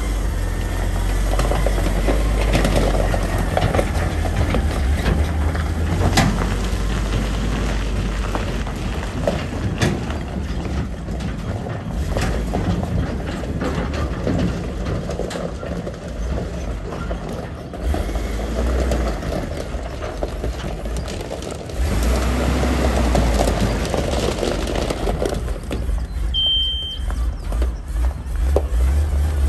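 Wind buffeting the microphone outdoors, a heavy rumble that swells and drops abruptly several times, with a short high beep near the end.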